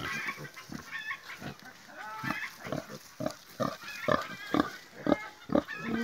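Pigs grunting, a steady run of short grunts about two a second, with a few higher-pitched calls in the first couple of seconds.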